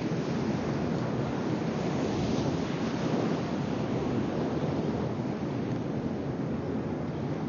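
A steady rushing noise, swelling slightly about three seconds in.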